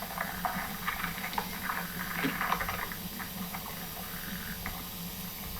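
Underground soil recording from a buried contact microphone: a continuous, irregular crackling, with scratching and clicking from small creatures moving and stridulating in the soil, over a faint steady low hum.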